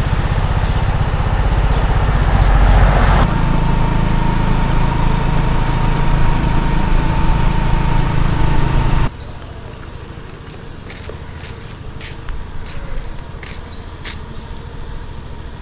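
Motorcycle engine running steadily while riding, then cutting off abruptly about nine seconds in. This leaves quieter street ambience with a few short high-pitched chirps.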